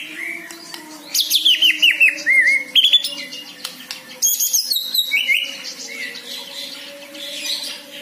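White-rumped shama singing: quick phrases of sweeping, rising and falling notes, in two main bursts about a second and about four seconds in, quieter toward the end.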